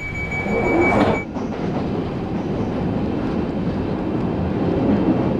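London Underground train running, heard from inside the carriage: a steady low rumble of wheels and running gear. A steady high tone sounds over it at first and stops about a second in.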